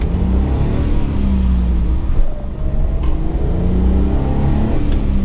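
A 1985 Suzuki Every's 550cc three-cylinder engine, heard from inside the cab, pulls away and revs up with rising pitch. About two seconds in it breaks off briefly for a gear change, then climbs in pitch again.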